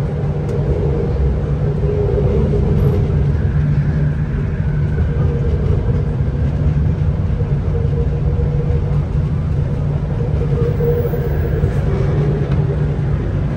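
Metro train running along an elevated track, heard from inside the carriage: a steady rumble of the wheels on the rails under an even motor hum.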